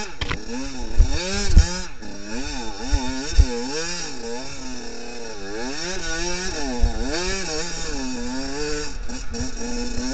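Enduro dirt bike engine revving up and down in quick repeated bursts as the rider works the throttle at low speed over rocks. A few sharp knocks come in the first few seconds.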